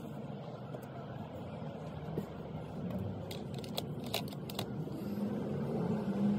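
Metal sockets clicking as they are pushed back into their spots in a plastic socket-set case, a handful of sharp clicks mostly in the middle of the stretch, over a steady low background rumble.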